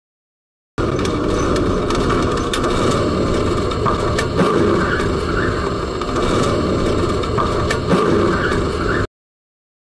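Tram running along its rails, heard from inside the driver's cab: a steady rumble and rattle, with a few clicks and knocks. It starts about a second in and cuts off suddenly near the end.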